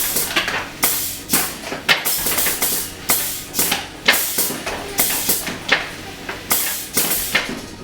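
Pneumatic prop's solenoid valve and air cylinder firing over and over, a quick series of short hissing blasts of compressed air, about two to three a second, as a skeleton lunger is cycled.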